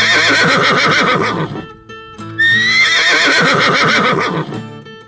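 A horse whinnying twice, each call rising and then falling off in a shaking tremble, the second beginning about two and a half seconds in, over light background music.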